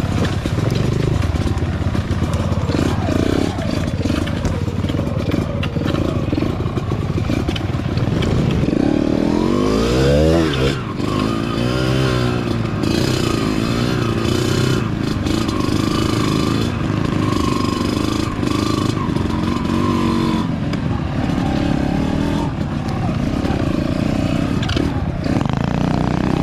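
Small dirt bike engines running on a trail ride, with one revving up and back down about ten seconds in.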